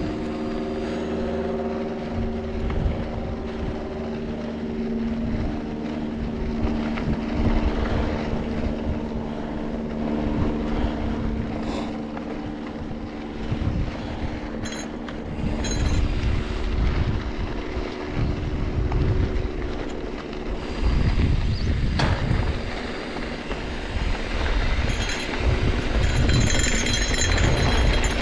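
A mountain bike ridden on a dirt trail: rumble from the tyres and wind on a helmet- or bike-mounted action camera, surging in the second half. A steady droning hum carries through the first half and fades out.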